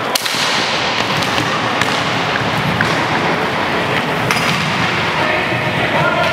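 Inline hockey sticks clacking at a faceoff just after the start, then a few more knocks of sticks and ball, with echo, over the steady noise of play in a sports hall.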